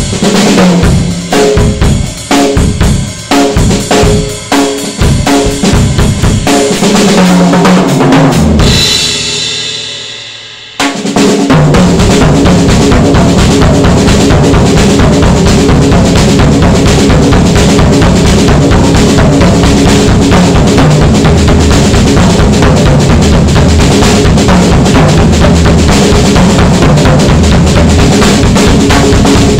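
Sound Percussion Labs acoustic drum kit with Soultone cymbals played solo: separate drum strokes of different pitches for the first several seconds, then a cymbal ringing out and fading about nine seconds in. After a brief lull the drums come back in with a dense, even beat of kick, snare and cymbals.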